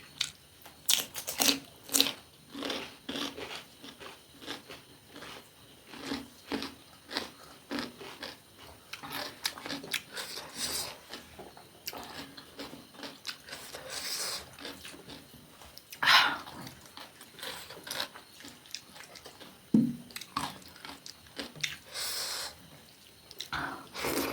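Close-miked eating: a person chewing and biting through a meal of fried chicken, fried beans and rice, heard as many short, irregular mouth clicks.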